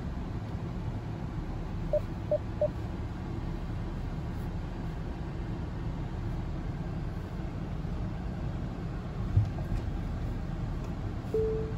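Steady low rumble of a 2022 Nissan Pathfinder idling and creeping forward, heard from inside the cabin. Three quick beeps come about two seconds in, and a short single tone sounds near the end.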